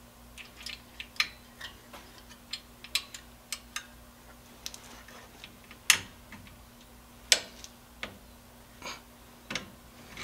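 Irregular metallic clicks and clinks of needle-nose pliers and the shoe hold-down spring and retainer cup on a 1965 Volkswagen Bus rear drum brake, as the cup is pressed down and twisted onto its pin. Two sharper clacks come about six and seven seconds in.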